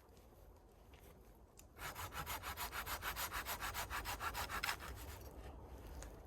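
Hand saw cutting through wood in a quick run of short back-and-forth strokes, about eight rasping strokes a second, lasting about three seconds before it stops.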